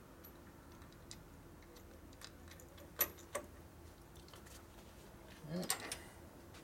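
Faint clicks and light metal taps as the bolts and chrome starter solenoid are handled and started by hand, with two sharper clicks about three seconds in.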